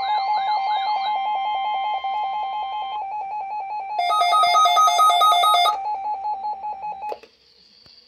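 Several weather alert radios sounding their alarms together for a weekly test. A warbling siren-like tone stops about a second in and steady tones drop out about three seconds in, under rapid, even beeping. A louder beeping pattern joins about four seconds in, and the whole alarm cuts off suddenly about seven seconds in.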